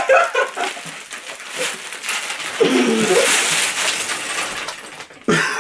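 A plastic cereal bag crinkling and tearing as two people wrench it open until it bursts and cereal pieces scatter, with yelling and laughter over it.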